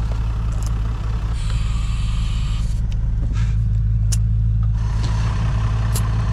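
Air chuck clicking onto a tire's valve stem and compressed air hissing into the tire in two stretches as it is aired up, over a steady low machine hum.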